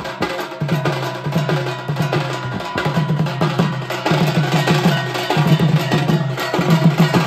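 Live folk drumming: dhol barrel drums beaten in a fast, steady rhythm together with large brass hand cymbals clashing.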